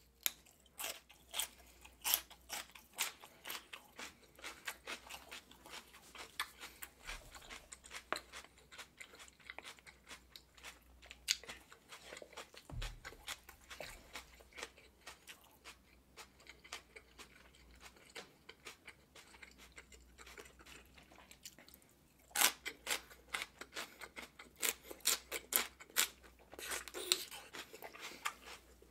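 Raw celery stalks being bitten and chewed close to the microphone: a steady run of crisp, watery crunches. There are louder bursts of crunching about two-thirds of the way in and again near the end, as fresh bites are taken.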